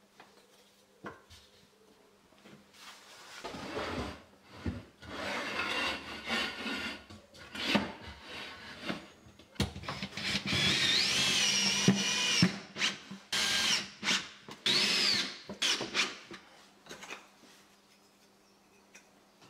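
Cordless drill running in several bursts as it works into a thin wooden sheet laid over floorboards, its motor whine rising and falling with the trigger. It starts a few seconds in and stops a few seconds before the end.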